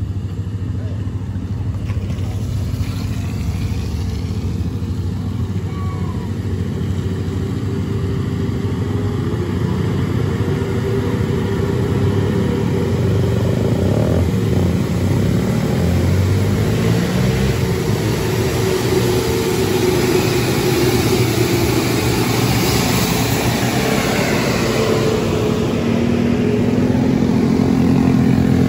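Vehicle engines climbing a steep unpaved hill: a bus engine working its way up, then several motorcycles and a car passing close, the engine sound rising and falling in pitch and growing louder near the end.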